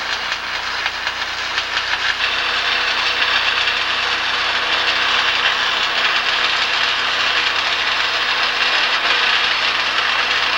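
Electric arc welding: the arc gives a steady, dense crackling sizzle, with a constant electrical hum underneath.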